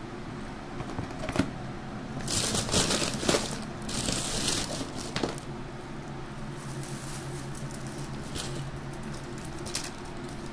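Clear plastic takeout packaging crinkling and crackling as it is handled, loudest in a stretch from about two to five seconds in, with a few sharp clicks, over a steady low hum.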